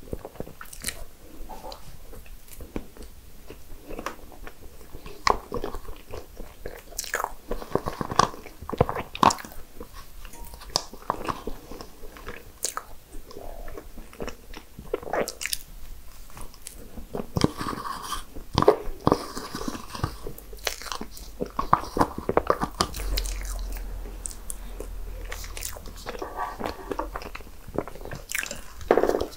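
Close-miked eating of desserts: repeated bites and chewing, with many sharp crunches and clicks coming at irregular intervals.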